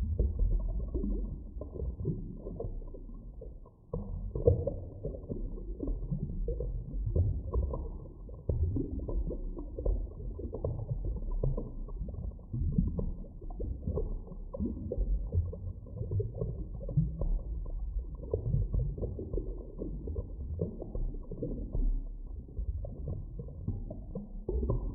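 Underwater ambience: an irregular, muffled low rumble with scattered small pops and knocks. It dips briefly just before four seconds in, then picks up with a sharper knock.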